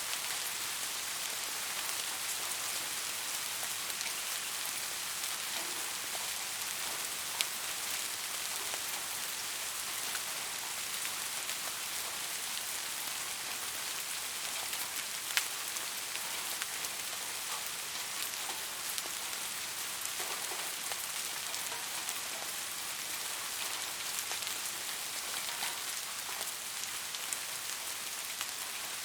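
Steady soft rain, a constant hiss of falling drops with scattered individual drop ticks; two sharper, louder drop hits stand out, one about a third of the way in and one about halfway.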